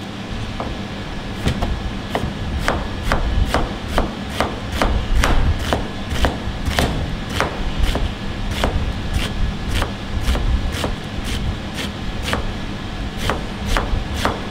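Chef's knife chopping down onto a plastic cutting board while finely slicing banana blossom, about two cuts a second, starting about a second and a half in. A steady hum runs underneath.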